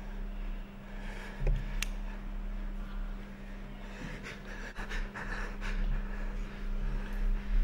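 A man panting heavily in short, ragged breaths over a steady low electrical hum, with a bump and a sharp click about a second and a half in.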